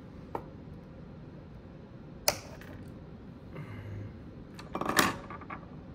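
Sharp clicks and snaps of small wire cutters snipping and handling stranded hook-up wire. The sharpest snap comes about two seconds in, and a quick cluster of clicks comes about five seconds in.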